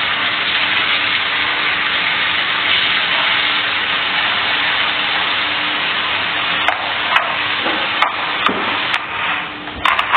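Cooking oil sizzling steadily in a pan, with a few sharp clicks and taps in the last few seconds.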